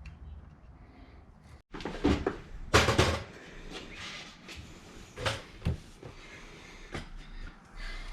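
A series of knocks and clunks of hard parts being handled, the loudest cluster about two to three seconds in, then a few single knocks spaced a second or so apart.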